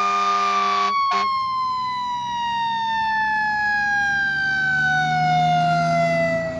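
Fire truck siren held on a high note, then winding down slowly and steadily in pitch, with a brief break about a second in.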